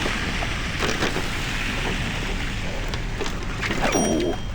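Steady rushing noise of wind on the microphone and city street sound while riding a bicycle through snow, a little louder near the end.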